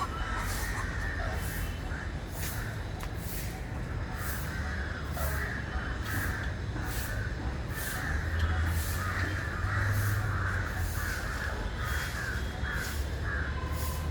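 A chorus of aviary birds calling and chattering, with sharp high chirps repeating about once or twice a second over a steady low rumble.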